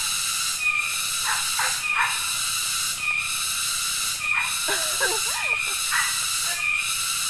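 Loud chorus of forest insects droning steadily, pulsing about once a second, with a short high chirp repeating on the same beat. A brief warbling sound comes about five seconds in.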